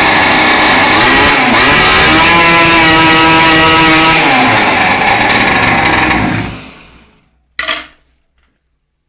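Mini moto (pocket bike) engine with a modified motor, revving hard: its pitch dips and climbs, holds high, then drops back and the engine dies away about six to seven seconds in. A brief sharp knock follows, then near silence.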